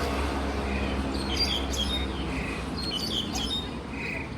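A shrike giving short, sharp chirping calls in several brief clusters over a steady low hum.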